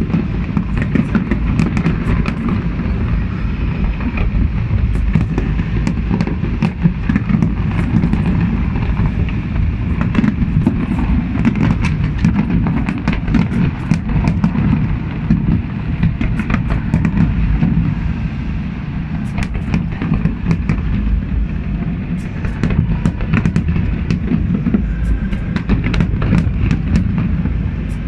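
Aerial fireworks display: a continuous low rumble of shell bursts with many sharp cracks and crackles going off throughout.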